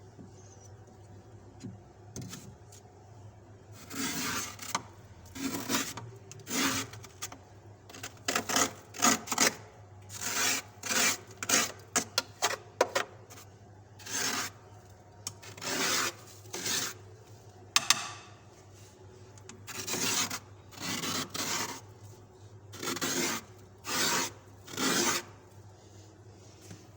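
Soft fluffy frost being scraped off the inside of an empty fridge: a series of short rasping strokes, coming in uneven runs with pauses between.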